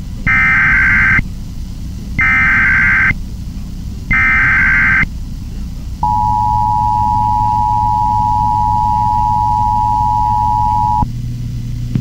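Emergency Alert System SAME header: three one-second bursts of digital data tones about a second apart, then the EAS two-tone attention signal, a steady dual tone held for about five seconds before cutting off abruptly. The header codes the alert as a Civil Emergency Message, which here carries a Blue Alert.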